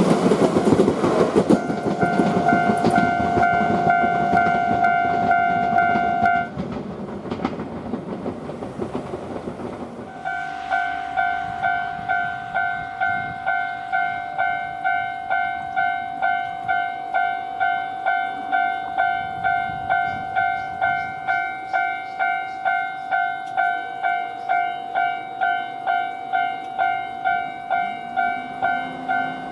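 A train runs over the level crossing with loud wheel rumble while the crossing bell rings. The bell stops about six seconds in, and the rumble fades. About ten seconds in, the crossing bell starts again and rings steadily at about two strokes a second.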